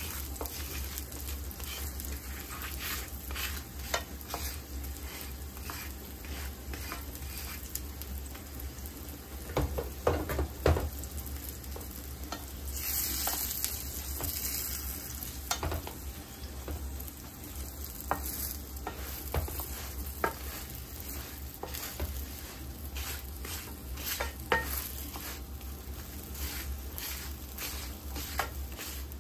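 Gözleme flatbread sizzling in an oiled frying pan while a wooden spatula spreads the oil over it, scraping and tapping against the bread and the pan, with a cluster of louder knocks about ten seconds in.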